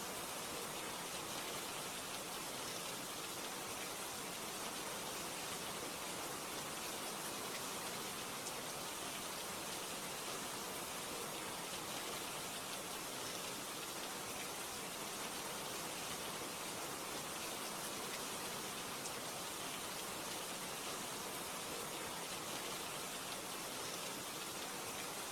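Steady rain, an even hiss with faint scattered drop ticks that holds without change.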